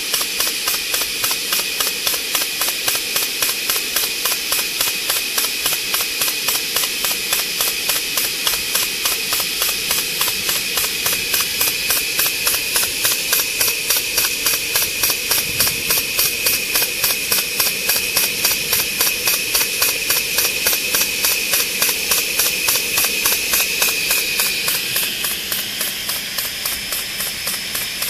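A Southworth steam-driven boiler feed pump on a miniature steam locomotive, working on saturated steam and pumping feed water into the boiler. Its strokes beat in a rapid, even rhythm over a steady hiss of escaping steam. The hiss and the overall level drop a little about 25 seconds in.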